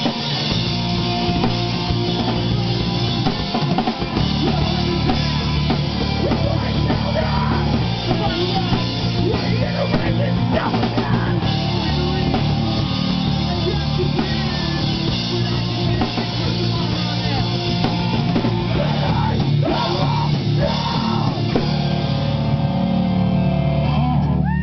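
Rock band playing live, loud and dense, with a drum kit and guitar.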